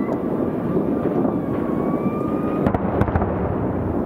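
Distant fireworks display, heard from about two kilometres away: a continuous rumble of echoing bursts, with a cluster of sharper bangs about three seconds in. Faint, thin whistles rise slowly above the rumble.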